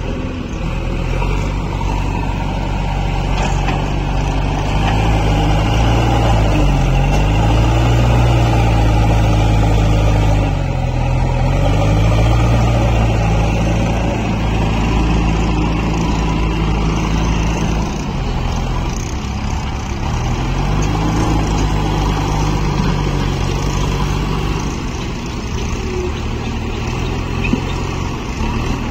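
JCB backhoe loader's diesel engine working under load as the front bucket pushes and lifts mud, its pitch dipping and climbing again several times.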